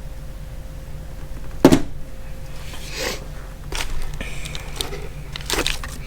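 Metal wrenches and their packaging being handled and set down: a few separate knocks and clicks, the loudest about a second and a half in, over a low steady hum.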